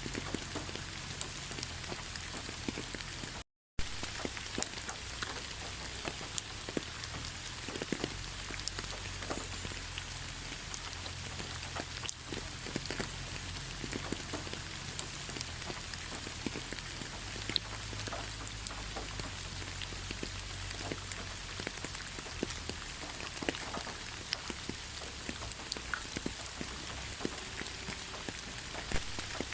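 Steady rain with many individual drops ticking, a continuous hiss full of small scattered taps. The sound cuts out completely for a split second about three and a half seconds in, then carries on unchanged.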